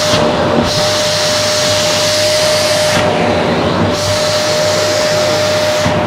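Vacuum cleaner running with a steady whine while its bare hose end is worked over a fabric cushion. The airy hiss of suction briefly dulls just after the start and again about three seconds in.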